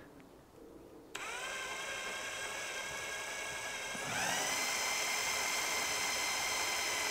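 Electric drill with a small 3.5 mm bit piloting a hole through a strimmer's shaft tube. The motor starts about a second in with a quick rising whine and runs steadily, then speeds up to a higher, louder whine about four seconds in.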